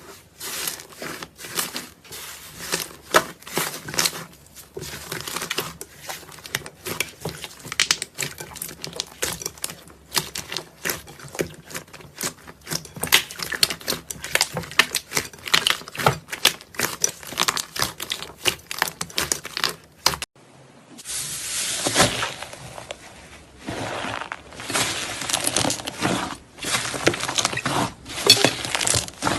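Close-miked crackling and crunching, a dense run of small irregular clicks, cutting to a second clip of the same kind of crunching about 20 seconds in.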